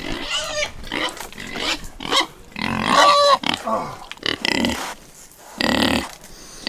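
Hungry pigs grunting in a string of short, irregular calls, with one longer pitched call about three seconds in.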